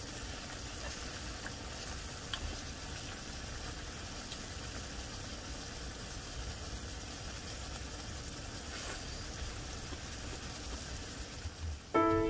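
Steady hiss and low rumble of portable gas burners lit under a cast-iron skillet and a clay rice pot, with the octopus stir-fry simmering. A few faint clicks of chopsticks against the pan.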